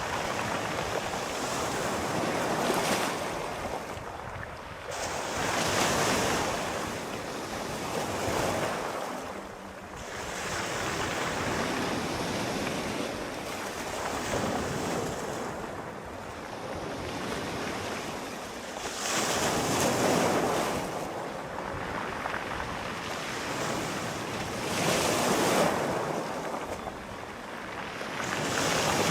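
Sea waves breaking and washing up on a shore, the surf swelling and falling back every few seconds, with wind noise.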